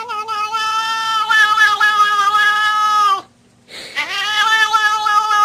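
A cat yowling: one long, drawn-out yowl that stops about three seconds in, then after a short pause a second long yowl.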